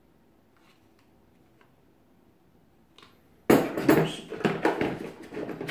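Near silence, then about three and a half seconds in a loud rapid clatter of hard plastic knocking and rattling as parts are pulled out of a moulded plastic drill carry case.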